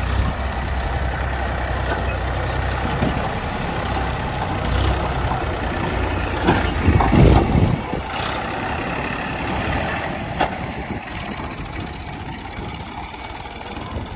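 Diesel engine of heavy earth-moving machinery running steadily, with a louder, rougher stretch about seven seconds in, after which the engine sound drops lower.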